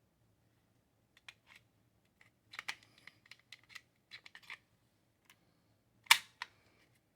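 Canik Rival pistol being reassembled: small metal clicks and scraping as its parts are handled and fitted together, then one sharp metallic snap about six seconds in.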